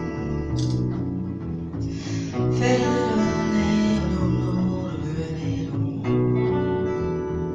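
Acoustic guitar and upright bass playing jazz together, the guitar strumming and picking over a walking bass line.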